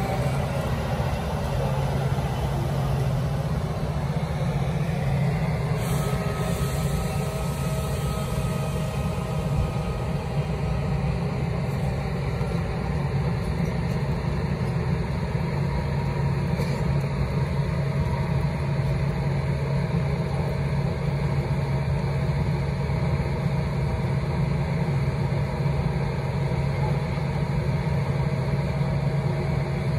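Metra commuter train standing at the platform, its diesel locomotive running with a steady, unchanging engine hum.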